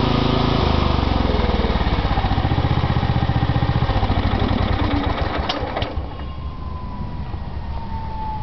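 Craftsman riding lawn mower engine running, dropping to a lower, slower pulsing note about half a second in. About six seconds in the engine sound falls away, leaving a faint, slowly falling whine and a couple of clicks.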